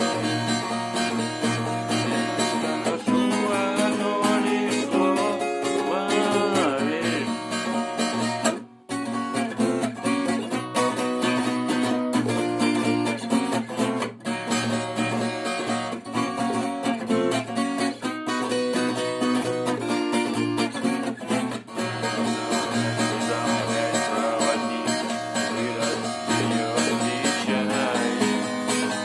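Music led by strummed acoustic guitar with a steady beat, briefly dropping out about nine seconds in.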